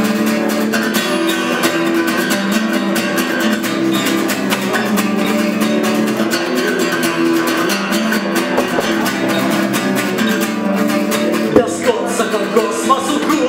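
Solo acoustic guitar played live, rapidly strummed with ringing chords.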